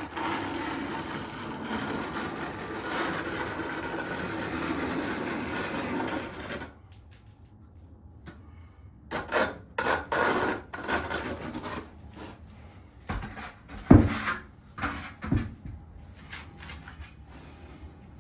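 Tiling trowel scraping and spreading thinset cement for about six and a half seconds, then shorter scrapes and a few knocks, with one sharp knock near the middle.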